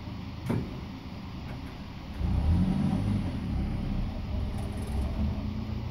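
Toyota 1RZ four-cylinder petrol engine running with its valve cover off, camshaft and rocker gear exposed. It runs steadily, picks up in speed and level about two seconds in, and eases back a couple of seconds later. There is a single sharp click about half a second in.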